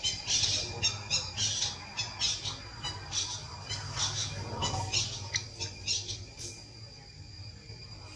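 Young long-tailed macaque squealing: a rapid run of short, high-pitched squeaks, two or three a second, which thins out and stops after about six seconds.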